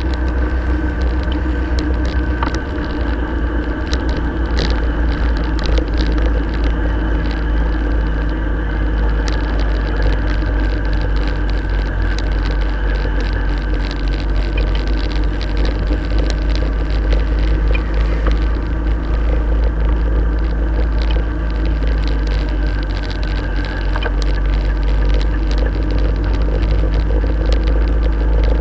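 Motorcycle engine running steadily at a low cruising speed, heard from a camera strapped to the bike, with a heavy low wind rumble on the microphone.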